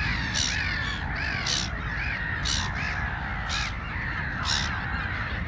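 A flock of gulls calling: many short, overlapping squawking calls, several a second, each rising and falling in pitch, over a steady low rumble.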